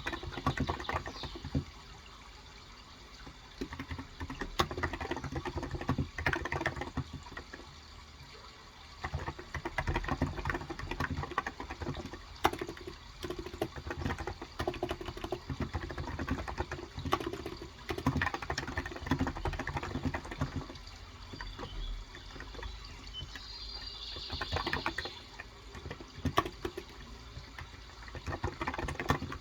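Typing on a Cox Endeavor electro-capacitive (Topre-style) 35 g tenkeyless keyboard: soft, dampened keystrokes in quick bursts with short pauses, over a steady background of running water. A brief high chirp, typical of birdsong, comes about 24 seconds in.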